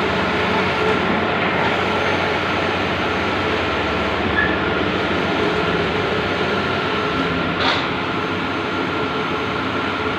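Large-format outdoor banner printing machine running with a steady mechanical hum and whir.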